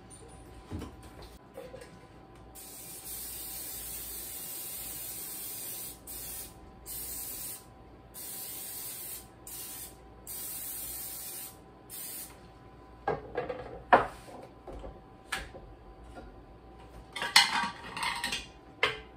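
Aerosol cooking spray hissing into a bundt pan in about seven bursts, the first a long one of over three seconds and the rest shorter with brief gaps, as the pan is greased. After that come a couple of sharp knocks and, near the end, some clattering.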